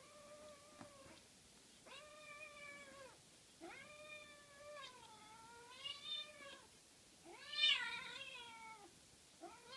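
A cat meowing over and over: about five drawn-out meows of a second or so each, the last two louder and higher.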